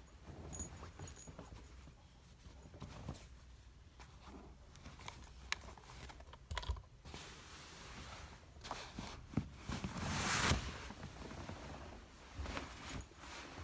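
Objects being handled and pulled out from beside a mattress: scattered light knocks, taps and rustles, with a louder rustling scrape about ten seconds in.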